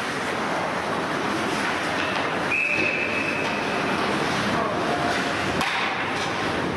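A referee's whistle blown once, a single steady blast of about a second and a half, over a constant noisy hiss of rink ambience; a sharp knock near the end.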